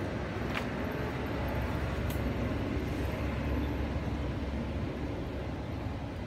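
Steady low outdoor rumble, with faint clicks about half a second in and about two seconds in.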